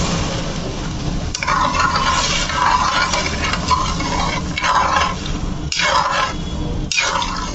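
Water pouring from a steel bowl onto sugar in a kadhai. About a second in, a slotted metal ladle starts stirring and scraping the wet sugar around the pan in repeated strokes, mixing the syrup for boondi laddu.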